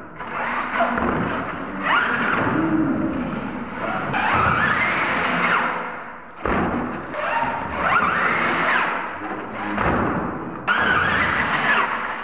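RC monster truck's motor revving again and again, each rev a rising whine, with a few sharp thuds as the truck lands and hits the ramps.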